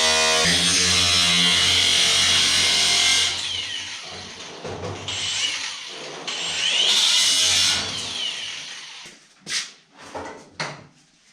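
Cutoff wheel cutting metal at full speed, then stopped and run in two short bursts, its pitch sliding as it spins down and back up. A few short knocks near the end.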